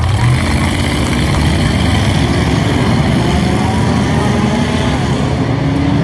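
Engines of a pack of street cars and pickup trucks racing on a dirt oval, a loud steady drone that cuts in suddenly at the start.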